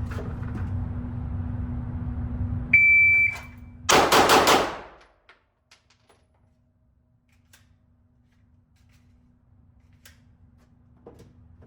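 A shot timer gives its start beep, and about a second later a pistol fires four shots in a fast string, each about a sixth of a second apart, inside an indoor range.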